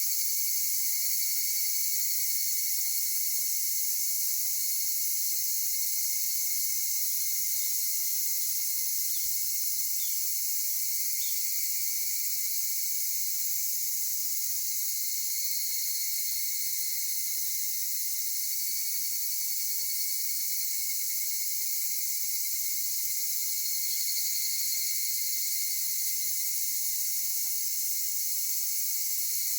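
Dense chorus of singing insects: a steady, high-pitched shrill drone with no break, swelling slightly now and then.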